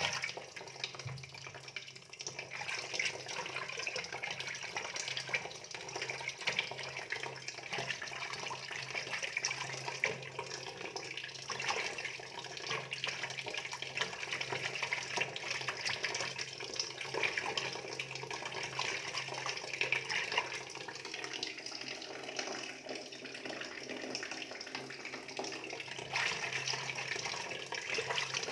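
Water running and pouring steadily into a fish tub or pond, with a low steady hum beneath.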